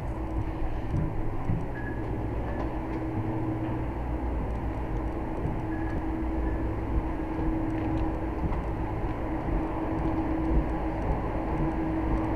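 Steady low rumble with a constant hum: airport machinery droning inside an enclosed jet bridge.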